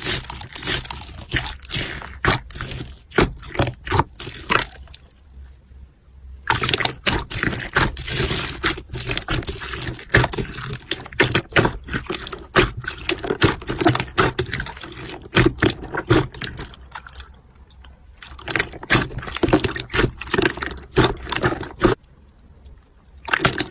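Slime being squished and stretched by hand: wet squelching with many quick popping clicks, pausing briefly twice.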